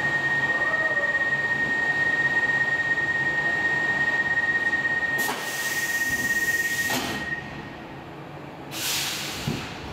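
Stockholm Metro C14 train standing at a platform: a steady high tone sounds over a loud air hiss and cuts off about seven seconds in. Louder bursts of compressed air hiss about five seconds in and again near the end, followed by a short thud.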